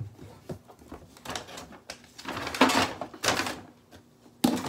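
A small clear plastic bow-front tank being handled and moved, with scraping and rustling, then a few sharp knocks near the end as it is set down or bumped.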